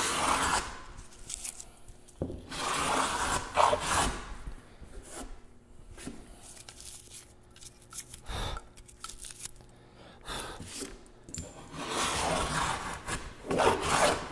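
Metal hand plane cutting along a wooden rabbet, giving a rasping shaving sound in strokes. It trims the shelf of a breadboard end down toward the gauge lines. A few strokes come early, one short one comes midway, and a longer run comes near the end, with quieter pauses between.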